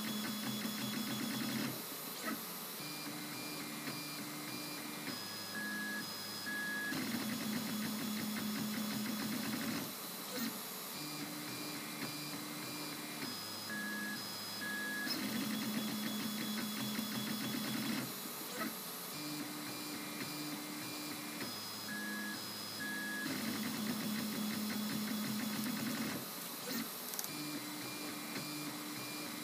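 MendelMax 2 3D printer's stepper motors whining as the print head traces a small test cube, their tones stepping between a few fixed pitches as the moves change. The same sequence of moves repeats about every eight seconds, one layer after another.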